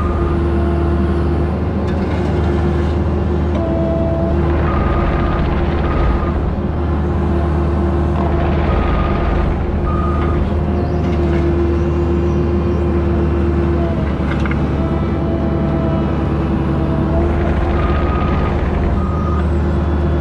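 A construction machine's diesel engine runs steadily under load. Its backup alarm sounds in short pairs of beeps every few seconds.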